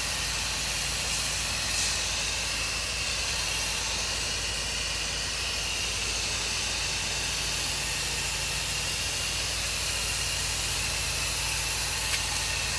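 Pressure washer spraying a downstream soap mix onto pool enclosure screens: a steady hiss of spray over the even low hum of the machine running.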